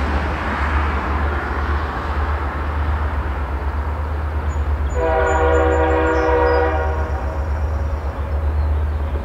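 Allegheny Valley Railroad diesel locomotive sounding its air horn in one blast of nearly two seconds, about five seconds in, as it approaches. A low steady rumble runs underneath.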